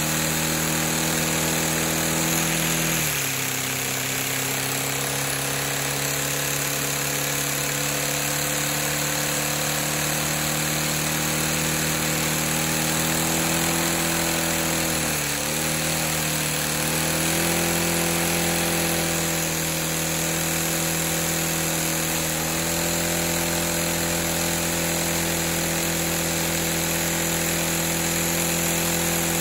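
LEGO vacuum engine running at full throttle and high revs, a steady buzzing whine over a constant rush of air. The pitch sags a little about three seconds in, dips briefly near the middle, then climbs back.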